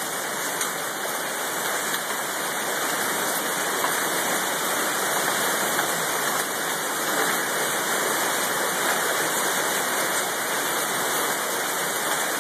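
Hail and heavy rain pelting down onto a wooden deck and the yard in a dense, steady hiss and patter, with faint scattered ticks of hailstones.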